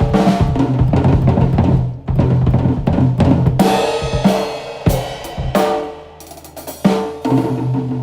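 Miked acoustic drum kit played in a sound check: a busy run of hits for about the first five seconds, then a few spaced hits that ring out.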